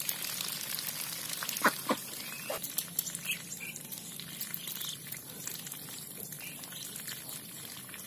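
Ducks drinking and dabbling with their bills at the water's surface: a continuous crackling, slurping patter of water full of small clicks, with a few short, louder sounds about two seconds in.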